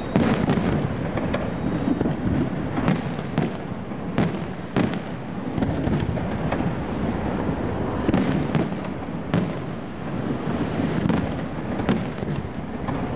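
Aerial fireworks display going off in a dense barrage: sharp bangs every second or so over a continuous crackling rumble.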